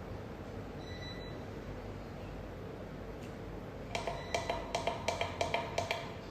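A fast run of about ten light, slightly ringing clicks over roughly two seconds near the end, over a steady low hum; a faint short beep sounds about a second in.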